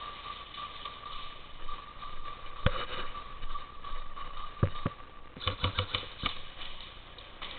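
Airsoft guns firing: a few single sharp snaps, then a quick run of about six shots a little past halfway, over a faint steady high hum.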